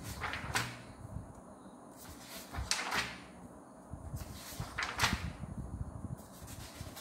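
Sheets of A4 paper being handled and counted, with short swishing strokes in quick pairs about every two seconds.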